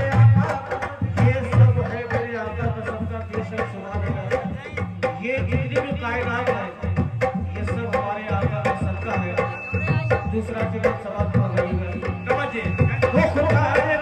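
Qawwali music: a harmonium playing held chords under men singing, over a steady hand-drum rhythm.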